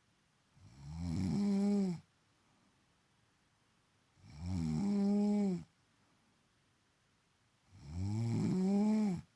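A woman snoring: three long snores, each about a second and a half and carrying a steady tone, spaced roughly three and a half seconds apart.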